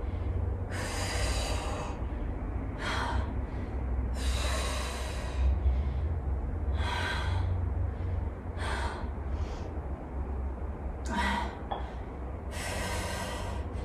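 A woman breathing hard from exertion during a dumbbell set: heavy mouth breaths about every one and a half to two seconds, longer breaths alternating with shorter ones.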